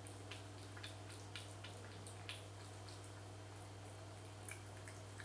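A cat eating from a bowl: faint, irregular small clicks and smacks of its mouth as it chews, a few every second.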